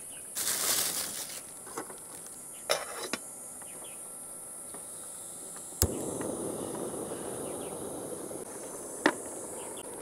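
Water poured into a stainless steel pot, then a few light knocks of handling. About six seconds in a portable gas stove's igniter clicks sharply and the burner catches with a steady hiss. Insects buzz high and steady throughout.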